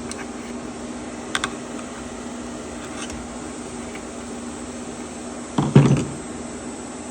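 Small metal parts of a motorcycle recoil starter clicking and clattering as it is taken apart by hand: a quick double click, a faint single click, then a louder, brief clatter near the end, over a steady low hum.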